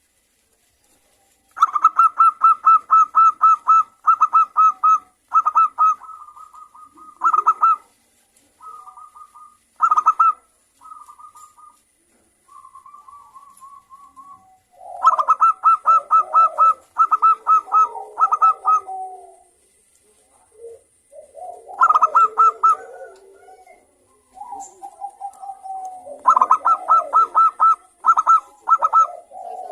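Zebra dove (perkutut) cooing: runs of quick, evenly repeated staccato notes, each run lasting a second or two, with short pauses between. Lower, rougher cooing sounds are mixed in through the second half.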